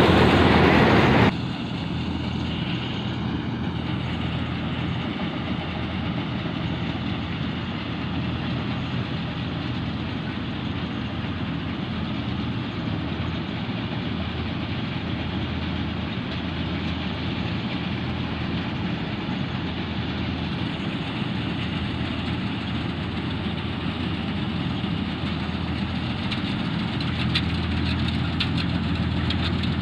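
Gill Preet 962 combine harvester's diesel engine and threshing machinery running steadily while cutting a mung bean crop. Loud and close for about the first second, then quieter and more distant after a sudden drop, with a slight rise near the end.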